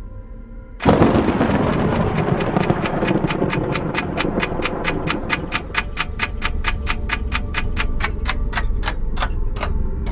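Fast clock-ticking sound effect: a sudden loud hit about a second in, then an even tick about four times a second over a low drone, the ticking stopping shortly before the end.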